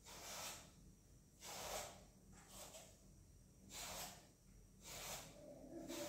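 Faint washing-up at a kitchen sink: soft hissing swishes, about one a second, as dishes are scrubbed or rinsed.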